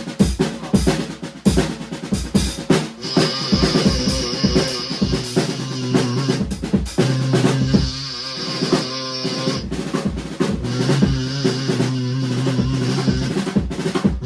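Live band playing: a drum kit alone at first, then held notes from another instrument join about three seconds in while the drums keep going.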